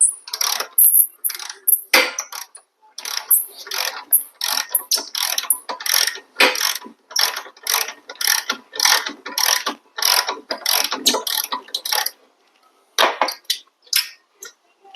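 Hand ratchet wrench clicking in a run of short back-and-forth strokes as a bolt is loosened, pausing briefly near the end.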